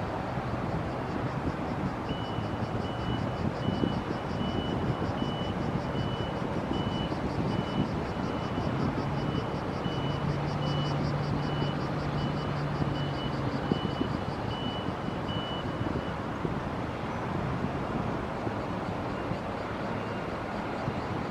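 Steady rumbling noise with wind on the microphone, and a repeated high electronic beep that sounds on and off for about fourteen seconds before stopping.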